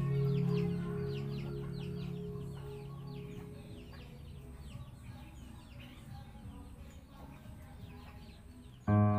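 Background music fading away under a steady run of high, falling bird chirps, about four a second. A plucked-string tune starts near the end.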